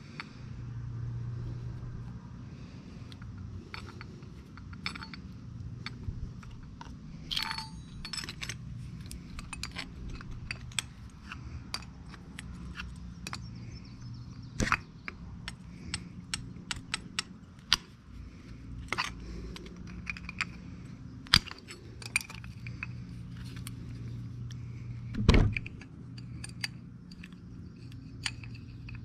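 Small metal clicks and clinks of hand tools and air-line fittings being handled and worked, scattered irregularly over a steady low hum, with one heavier knock near the end.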